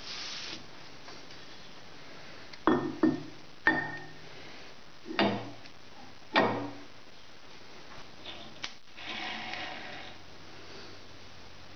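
Metal clamp parts and T-nuts knocked and clanked into place on a shaper table: five sharp knocks with a short ring in the first half, then a few faint ticks.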